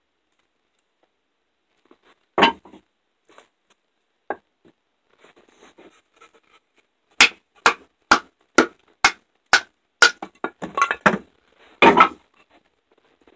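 Batoning a fixed-blade MTech knife into the end of a board: a knock about two seconds in, then from about seven seconds a steady run of sharp wooden knocks about two a second, turning quicker and ragged near the end.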